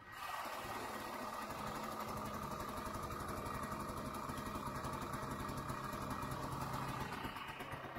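Vintage Ski-Doo snowmobile's two-stroke engine running steadily with a fast, even beat. It starts abruptly, and the note shifts slightly near the end.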